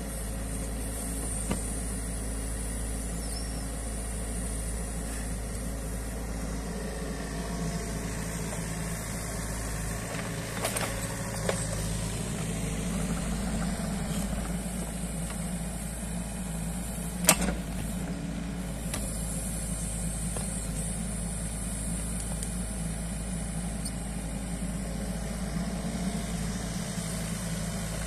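Mini excavator's diesel engine running steadily while it digs and swings its bucket. A few sharp knocks break in, the loudest about 17 seconds in.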